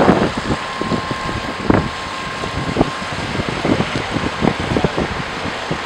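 An ambulance van drives close past, loud for the first moment and then fading, leaving a steady engine hum from the emergency vehicles, with a faint steady whine and scattered light knocks.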